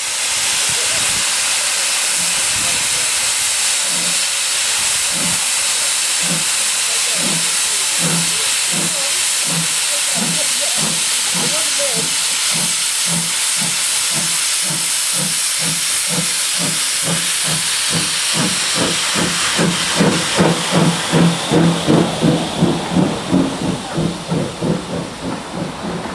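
Steam locomotive pulling away, with a loud steady hiss of steam over its exhaust beats, which quicken steadily. In the last few seconds the beats grow louder and come two to three a second.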